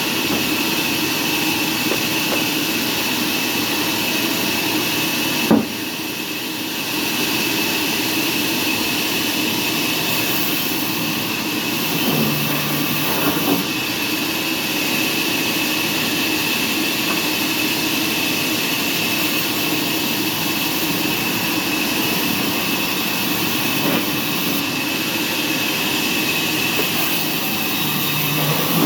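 Sawmill machinery running steadily: a continuous mechanical drone with a steady high whine, and a sharp knock about five seconds in.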